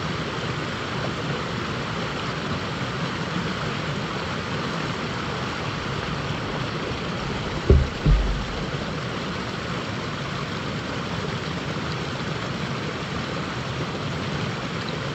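River water rushing steadily over rocks in a riffle, with two brief low thumps a little past the middle.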